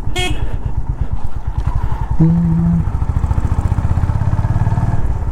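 Honda H'ness CB350's single-cylinder engine running under way, its exhaust beat a steady rapid pulsing. A short steady tone sounds over it about two seconds in.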